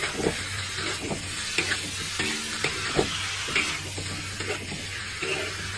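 Chicken, carrot and bell pepper sizzling in a hot wok while a spatula stirs them, with repeated irregular scrapes and knocks of the spatula against the pan.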